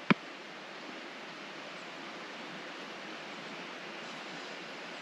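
Soft, steady hiss of self-raising flour pouring from a plastic jar into a metal measuring cup, with a single sharp click right at the start.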